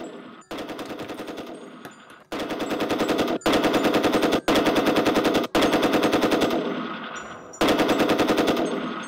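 Machine-gun sound effect: fast rattling automatic fire in several back-to-back bursts of one to two seconds each, starting about half a second in, each burst fading slightly toward its end.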